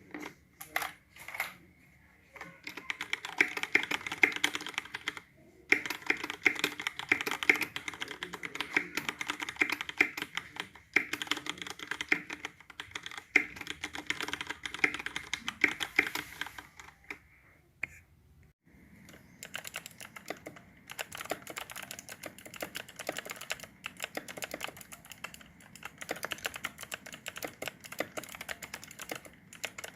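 Fast typing on a mechanical keyboard with stock, unlubed switches: rapid key clacks in runs with short pauses. A few lone keystrokes open it, and after a brief gap a little past halfway the typing goes on with a different, brighter sound, as on a different board.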